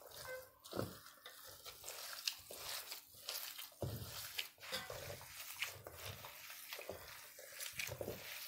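Gloved hands kneading oily bulgur çiğ köfte mixture in a stainless steel tray: a string of irregular, short wet sounds as hot oil is worked into the köfte by hand.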